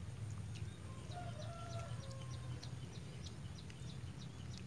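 A faint drawn-out bird call about a second in, lasting over a second, over a steady low rumble and scattered faint high clicks.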